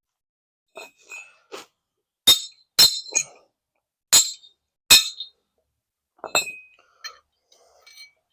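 Sharp metal-on-metal clinks and strikes: about five loud ones with a short ringing tone, among quieter clatter of metal tools and parts.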